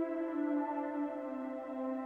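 Soft ambient background music: sustained synth-pad chords that slowly shift in pitch.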